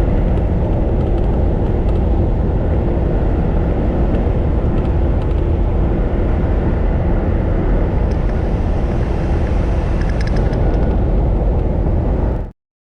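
Steady low rumble of a vehicle on the move, with a few faint ticks, cutting off abruptly to silence near the end.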